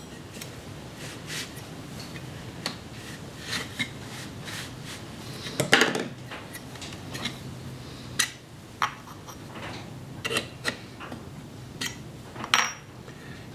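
Metal parts of a Sheridan Streak pump-up air rifle clicking and clinking as they are fitted and pinned by hand: scattered light taps, with louder knocks about six seconds in and near the end, over a faint steady low hum.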